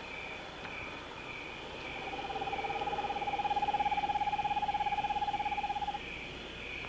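Night ambience of crickets chirping in even pulses, about two a second. A steady wavering tone rises in about two seconds in and fades out near the end.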